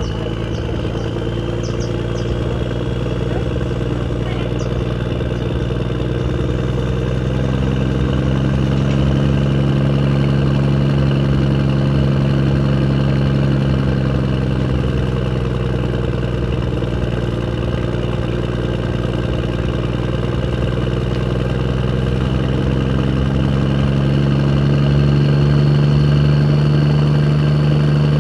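An engine running steadily at a constant speed, its pitch easing down slightly and then rising a little near the end.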